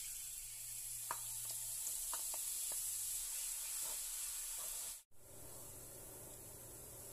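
Chopped garlic sizzling hard in hot vegetable oil as it is tipped in and stirred, with a few light clicks in the first few seconds. About five seconds in the sizzle drops to a softer, steady hiss.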